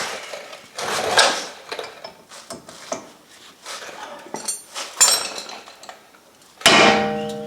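Clattering and handling of metal tools, then, near the end, one hard hammer blow with a ringing metallic tone that dies away slowly. The blow is a hand impact driver being struck to break loose the screw that holds the brake rotor to the hub.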